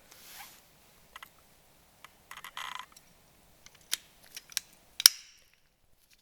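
Metal tools and parts being handled by hand: a short rattle about two and a half seconds in, then a few sharp clicks, the loudest about five seconds in with a brief ring.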